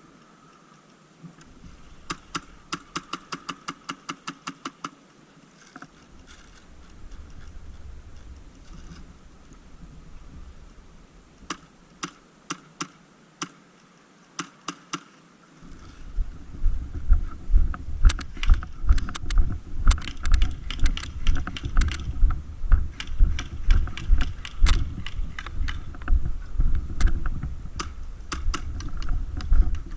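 Airsoft gun firing a fast string of about a dozen shots, then a few single shots. About halfway in, heavy low thumps and rustling start and repeat about twice a second, with more sharp shot clicks among them.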